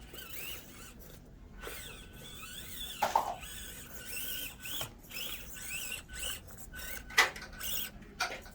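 Axial SCX24 micro crawler's small electric motor whining in short bursts, its pitch rising and falling over and over as it crawls. There are also a couple of sharp knocks, the loudest about three and seven seconds in.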